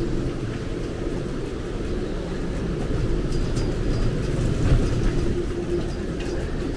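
Hurricane wind and rain, with the wind buffeting the microphone as a steady low rumble. A faint steady whistle runs through it.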